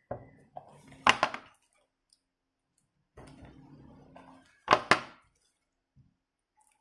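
Hard plastic crate-style toy boxes being pried open by hand: sharp plastic clicks and snaps, a cluster about a second in and a loud pair near the middle, with light scraping and handling in between.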